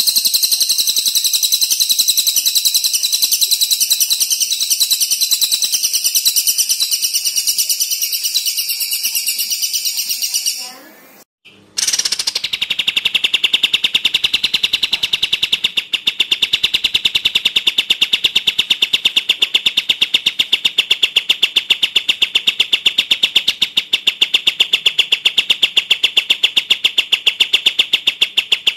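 Masteran bird-song recording of olive-winged bulbul (kapas tembak) and crested jay (cililin) calls. A dense, very fast run of high-pitched notes fades out about eleven seconds in. After a brief break, a steady rapid rattle of notes at a lower pitch takes over.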